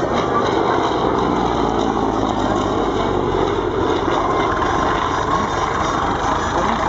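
Yakovlev Yak-11 trainer in flight, its radial piston engine and propeller giving a steady drone.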